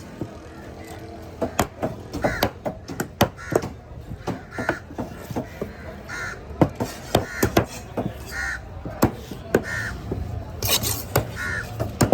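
Knife or cleaver chopping fish on a cutting board in a run of sharp knocks, with a bird giving short harsh calls every second or so.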